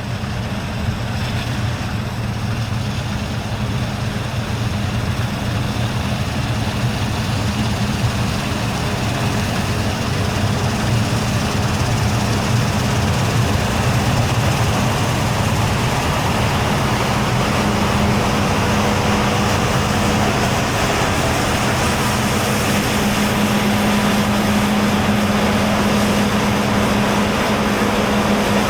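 Large diesel engine of harvest machinery running steadily under load. A low drone strengthens and the whole grows somewhat louder over the first dozen seconds.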